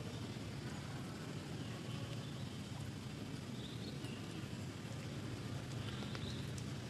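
Steady outdoor background noise with a low rumble, and a few faint, short, high chirps scattered through it.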